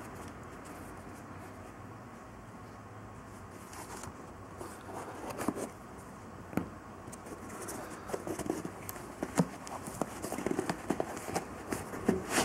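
Paper packing being handled and pulled out of a suede slipper: scattered crinkles, rustles and small clicks that begin about four seconds in, over a faint steady hiss.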